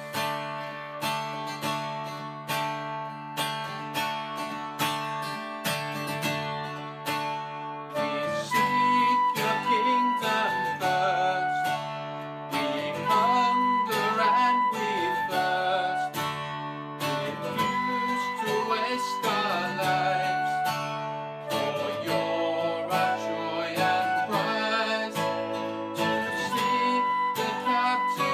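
Acoustic guitar strummed steadily while a flute plays the melody; the music grows louder about eight seconds in.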